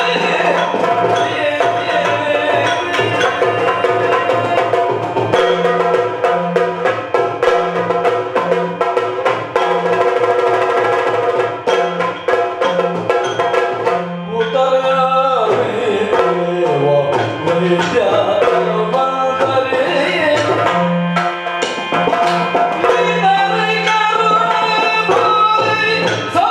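Yakshagana dance music: chende and hand-drum strokes in a fast, dense rhythm over a steady held drone.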